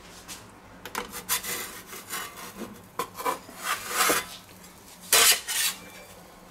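Metal pizza peel scraping across the stone of an electric pizza oven as a pizza is slid off it and the peel is drawn back, in a series of short scrapes, the loudest about five seconds in.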